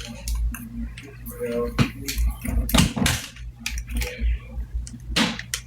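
A person eating close to the microphone: irregular chewing and mouth clicks, with scattered light taps and knocks.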